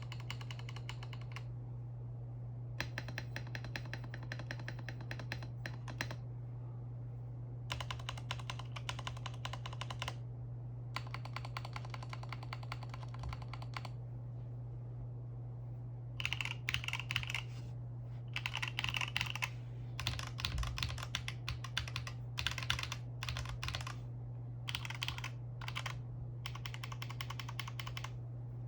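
Typing on an EPOMAKER Mini Cat 64 mechanical keyboard with Fantasy DVA linear switches: fast runs of keystrokes in several bursts separated by short pauses, over a steady low hum.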